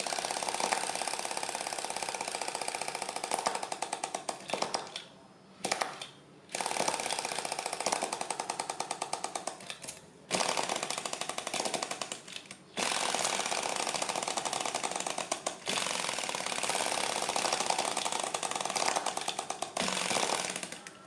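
Flame-licker vacuum engine running: a rapid, regular clatter from the engine, many beats a second. It drops away briefly several times.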